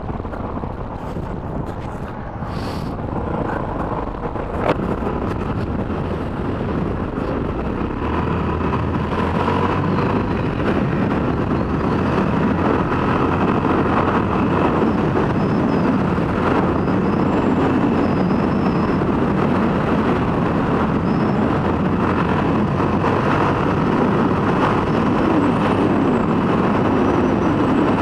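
Motorcycle running at speed on a sand beach, its engine mixed with a steady rush of wind noise. Both grow louder over the first ten seconds or so as the bike speeds up, then hold steady. One sharp click about five seconds in.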